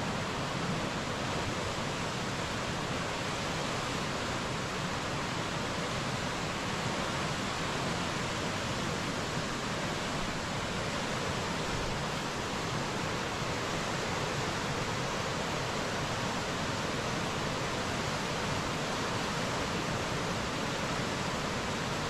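Barnafoss waterfall, a heavy torrent of a lot of water pouring through rock, heard as a steady, unbroken rush.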